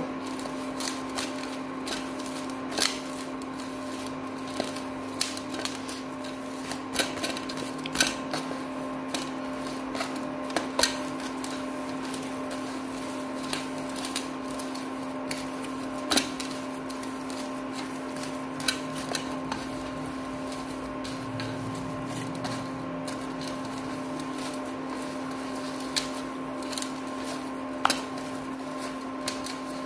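Hands kneading soft cooked semolina dough in a stainless steel plate: scattered light taps and clicks against the steel, over a steady hum.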